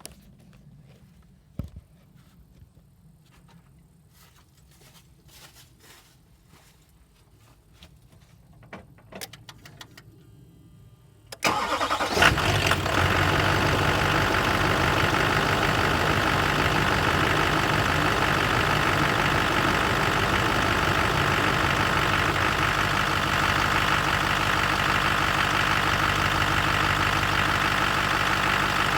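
Faint scattered clicks for about eleven seconds, then a Duramax diesel engine starts on first start of the day: it fires suddenly with a brief hiccup, a momentary stumble, in the second or so after catching. It then settles into a steady idle.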